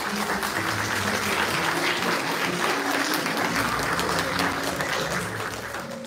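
Audience applauding as the stage curtains close, with background music playing underneath; the clapping fades toward the end.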